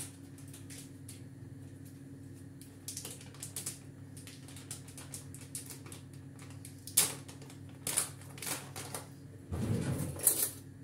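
Plastic cocoa packet being handled and opened, its wrapper crackling in short crisp clicks. The clicks grow busier from about three seconds in, with louder handling near the end, over a steady low hum.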